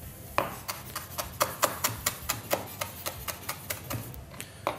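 Chef's knife chopping small chilli peppers on a wooden cutting board: a quick, uneven run of sharp knocks of the blade on the board, about four or five a second, starting about half a second in.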